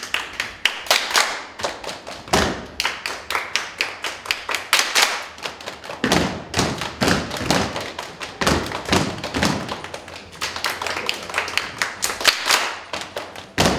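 A group of children clapping their hands and stamping their feet in rhythm, a quick run of claps and thumps at about three or four a second, with no singing.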